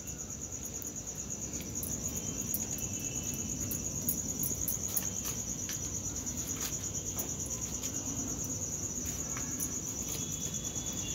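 A cricket trilling steadily, a continuous high-pitched chirring, with faint clicks and scrapes of a metal spoon spreading cream on toast.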